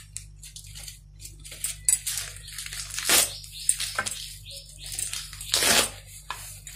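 Fresh Malabar spinach (poi saag) leaves handled on a plate: irregular crisp rustles and crunches, the loudest about three seconds in and a longer one just before the end, over a steady low hum.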